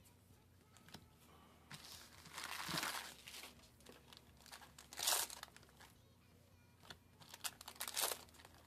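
A foil trading-card booster pack crinkling as it is handled and torn open. It comes in several noisy bursts, the loudest about five seconds in and a cluster of crackles near the end.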